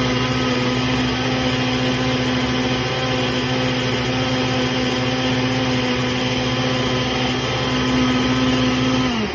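Countertop blender motor running steadily at high speed, blending a smoothie of banana, dates and nuts. It is switched off at the very end, its pitch falling as it spins down.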